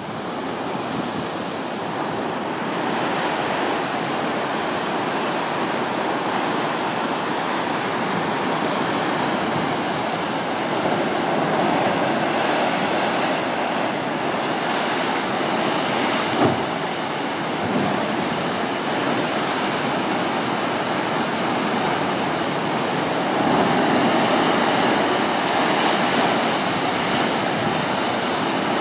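Heavy ocean surf surging and churning through a narrow rock chasm under a sea arch: a continuous rush of breaking water that swells louder about halfway through and again near the end. One brief knock is heard about halfway through.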